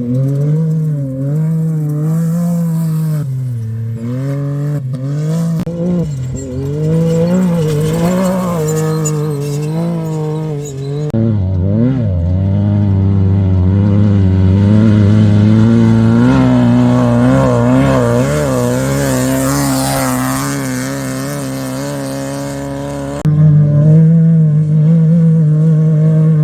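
Off-road race vehicle engines running hard. For the first ten seconds or so the revs rise and fall unevenly. Then the sound switches abruptly to a steadier engine note that climbs slowly, and about 23 s in it switches again to a louder, steady engine.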